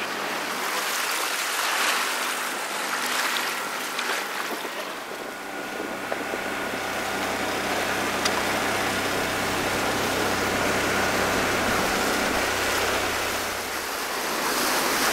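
Wind and water noise on an open boat. About five seconds in, a Honda outboard motor starts to be heard running at a steady pitch underneath it.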